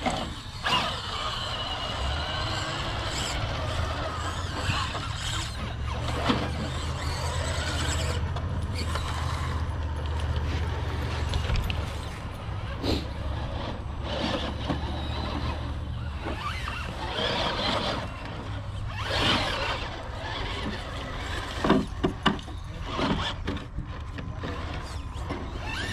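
Electric RC rock crawlers driving over rocks: the small motors and geartrains whine in spurts while the tires and chassis scrape and knock on the stone.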